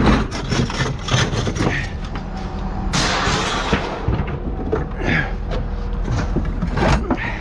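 Scrap metal being loaded into a truck: repeated clanks and bangs of metal pieces landing, with a longer crashing scrape about three seconds in, over a steady low hum.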